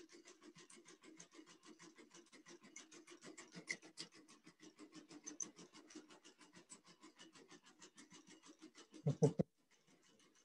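Quadruped robot dog walking, its feet tapping the floor in quick, even steps, about five or six a second. A brief louder thump comes about nine seconds in, and the stepping stops just after it.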